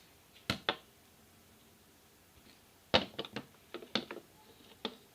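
Small plastic and metal accessories being set down and shifted on a desk: a couple of knocks about half a second in, then a run of sharp clicks and taps about three seconds in.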